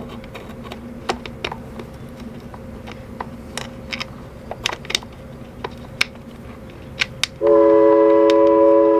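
Light clicks and taps of hands working plastic water-valve fittings behind an RV toilet, then, about seven and a half seconds in, a loud steady horn starts up, several tones held together as a chord: the sawmill's horn signalling the end of the lunch break.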